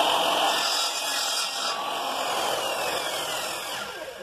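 Electric power saw cutting through a bamboo pole: a loud motor whine over rough cutting noise, slowly dropping in pitch, then winding down and stopping near the end.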